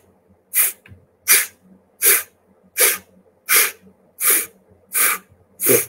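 A person forcing breath out through the mouth in eight short, sharp puffs, evenly spaced about three-quarters of a second apart, all from one full inhale. This is the Cleansing Breath pranayama: the diaphragm and rib muscles contract in regular pulses to drive the leftover air out of the bottom of the lungs.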